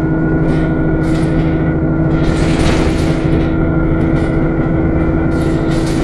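Enviro 400 Trident double-decker bus running steadily, heard from the upper deck: a steady engine drone with a high whine above it, the pitch holding level. A brief hiss comes about two and a half seconds in.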